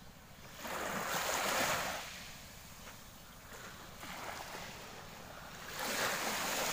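Small waves washing onto a sandy beach: a hiss of surf that swells up about half a second in, fades, and swells again near the end.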